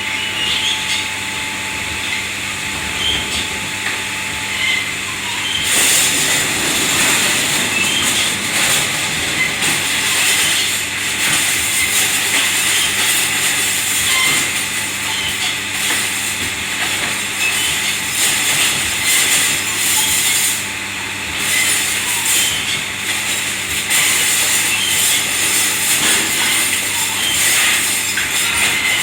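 Dish-washing in a commercial kitchen: a steady machine hum and a rush of spraying water, with scattered clinks of crockery and metal. The rush comes in a few seconds in and drops out briefly a little past the middle.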